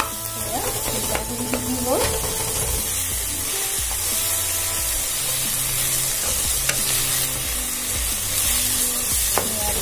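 Chopped tomatoes and fried ginger-garlic-onion paste sizzling in oil in a non-stick pan, stirred and scraped with a wooden spatula. Soft background music plays underneath.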